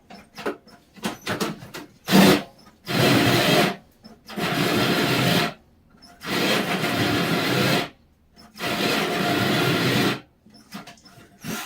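Cordless drill turning a hole saw into a wooden board in about five short bursts of a second or so each, with short pauses between. The drill is struggling on a battery that is running low.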